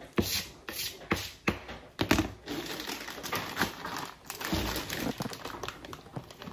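A kitchen knife knocks on a cutting board several times in the first two seconds. Then plastic bags of shrimp and mixed seafood crinkle and rustle as they are handled.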